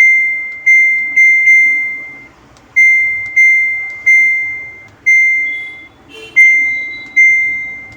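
Samsung top-load washing machine control board's buzzer beeping once for each button press as the wash programme selections are stepped through: about ten short, high beeps at an uneven pace, each fading out, with brief pauses between some. The beeps show that the selector buttons register on the board.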